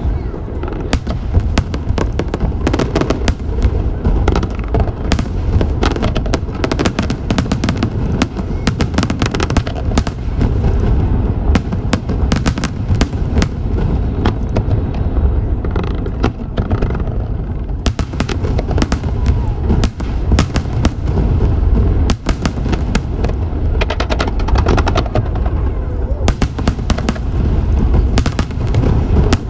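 Fireworks display: a dense, unbroken run of sharp bangs and crackles over a continuous deep rumble of bursting shells.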